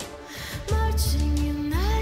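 Background music, a song with a singing voice; a heavy bass comes in under a second in and the music gets louder.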